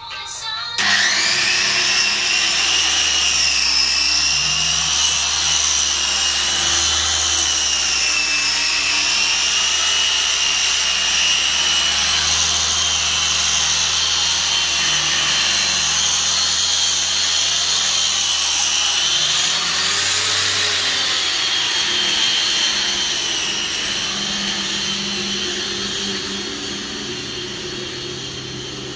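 Handheld angle grinder with a polishing pad working on marble: a loud, steady high whine that starts suddenly about a second in and wavers slightly in pitch, easing off somewhat in the last several seconds.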